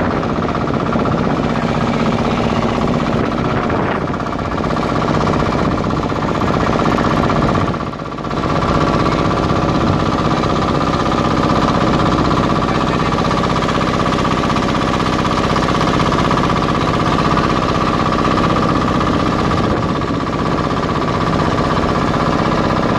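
Engine of a small wooden passenger boat running steadily, heard from on board. The sound dips briefly about eight seconds in.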